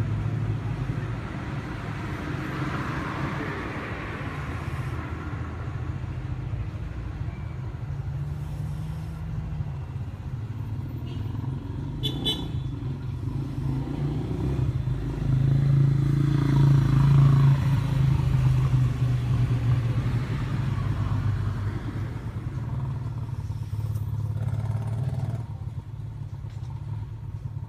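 Steady low rumble of motor traffic, swelling as vehicles pass, loudest about sixteen seconds in; a short click about twelve seconds in.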